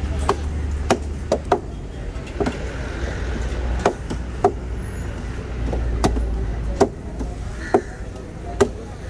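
Heavy knives and a cleaver chopping through yellowfin tuna flesh and bone into a wooden table: a dozen or so sharp, irregular chops, about one a second, over a steady low rumble.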